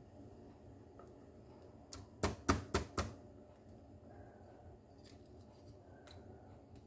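Garlic being pounded to crush it: four sharp knocks in quick succession a little over two seconds in, with a fainter knock just before them.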